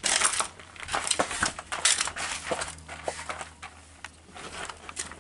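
Irregular clicks and light metallic knocks of hand work on a car door's window regulator arm and glass, over a faint steady low hum.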